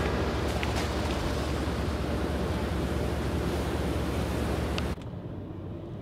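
Wind rushing over the microphone and water washing past a moving ferry, over a low steady rumble. About five seconds in it cuts off abruptly to the quieter low hum of a car cabin.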